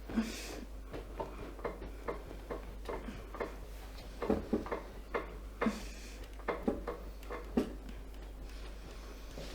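Irregular soft taps and knocks, about a dozen, with a couple of deeper thuds and two brief rustles: hands and a body shifting on a chiropractic treatment table during stretching.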